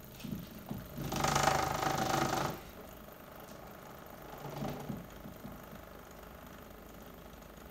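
Small DC motor running off a charged capacitor bank, belt-driving a three-phase motor used as an alternator through a large spoked pulley. It makes a steady mechanical running hum. About a second in, a louder humming surge lasts about a second and a half, and a shorter, weaker one comes a few seconds later.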